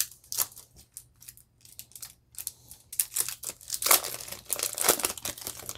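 Foil Yu-Gi-Oh Toon Chaos booster pack crinkling and tearing as it is ripped open by hand: scattered sharp crackles that get denser and louder about three seconds in.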